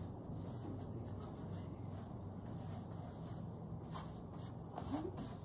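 Gloved fingers rubbing and smearing acrylic paint across a canvas, a soft scratchy rubbing, over a steady low hum.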